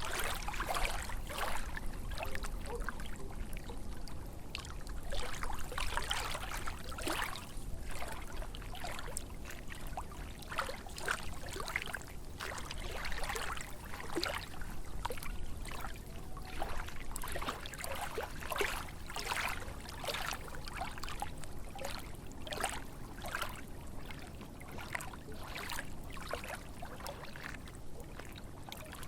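Small lake waves lapping and splashing in quick, irregular splashes, over a steady low rumble.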